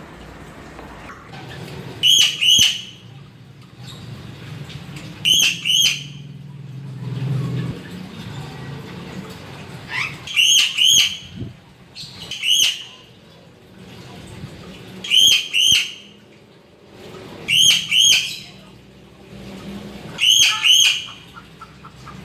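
A gagak pencalang crow calling repeatedly: about seven bouts of high, clear notes, each bout two or three quick calls, a few seconds apart.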